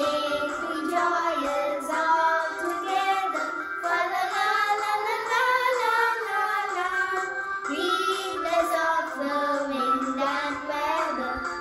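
A woman and two children singing a Christmas carol together.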